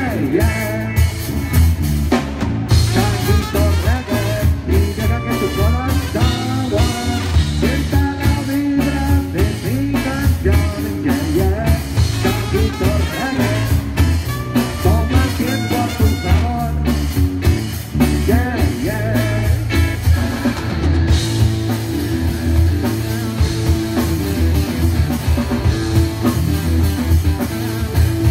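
Live band with electric guitars, bass guitar and drum kit playing a reggae-rock song with a steady beat, loud through the PA.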